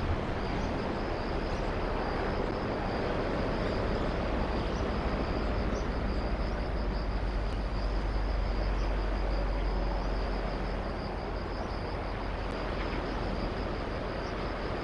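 Steady outdoor noise with a deep rumble that swells in the middle and eases off toward the end, under an insect calling in rapid, even pulses.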